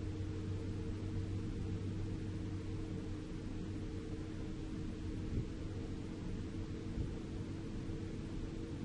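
Isuzu Giga FVZ self-loader truck's diesel engine droning steadily as heard inside the cab while driving: a low, even hum with road hiss over it. Two light knocks past the middle.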